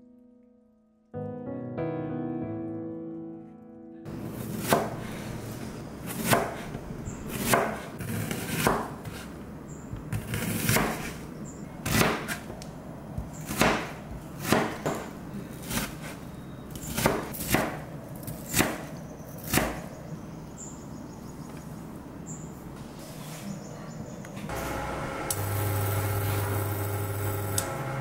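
A chef's knife slicing an onion on a plastic cutting board: a run of sharp knocks, roughly one to two a second, as the blade strikes the board. Soft piano music plays briefly before the chopping starts, and a steady hum comes in near the end.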